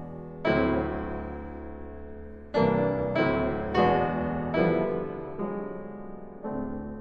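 Background solo piano music: slow chords struck one after another and left to ring and fade.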